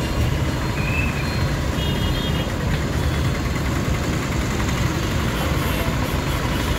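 Steady low rumbling background noise, even in level throughout, with no distinct events standing out.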